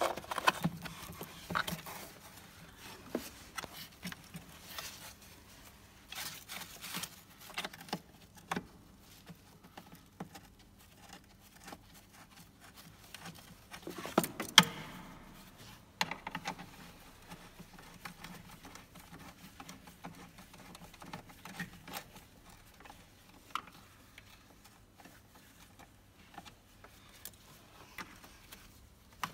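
Gloved hands handling plastic parts and wiring in a car's engine bay: scattered clicks, knocks, scrapes and rustles, the loudest just after the start and about halfway through.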